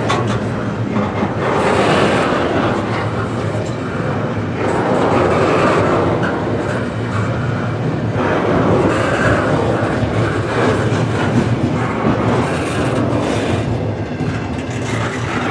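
Slow-moving double-stack intermodal freight train rolling past, a steady noise of steel wheels on rail from the container well cars.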